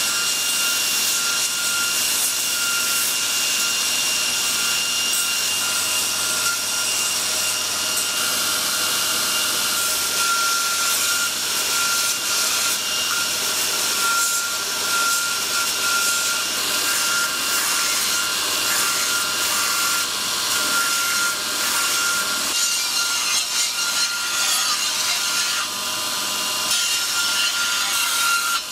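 Belt grinder running, its abrasive belt grinding the steel edge of a Chinese cleaver blade: a steady, hissing grind over a constant high whine.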